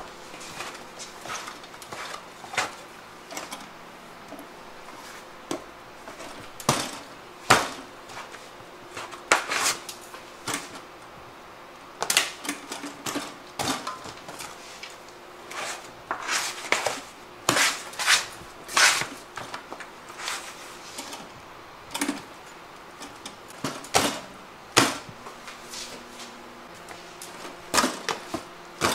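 Irregular sharp knocks and clatter of metal trays, bowls and a scale pan as bread dough is torn, dropped and weighed on a steel counter, a few knocks every couple of seconds over a faint steady hum.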